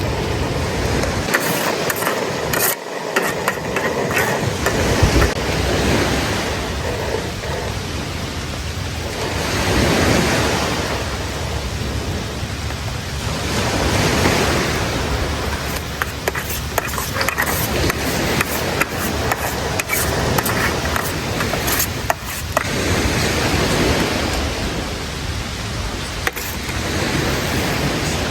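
Sea surf washing onto a beach, a steady rush of water that swells and falls back every few seconds.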